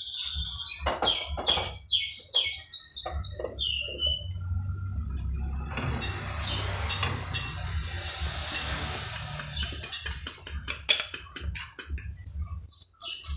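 A fork beating eggs in a ceramic plate: a fast run of clinks through the second half. Near the start, a few quick high whistles falling in pitch.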